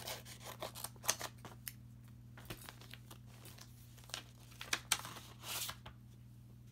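A small mailed package being opened by hand: irregular short tearing and rustling sounds from the packaging, with a longer tear about five and a half seconds in.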